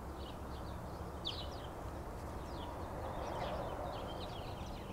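Outdoor ambience of small birds chirping in many short, quick calls over a steady low rumble.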